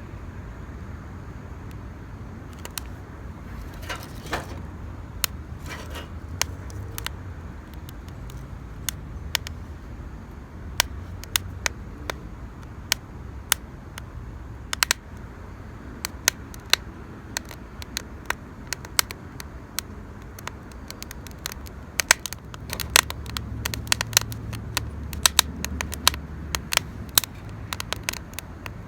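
Wood campfire crackling, with sharp irregular pops that come thicker and faster in the second half.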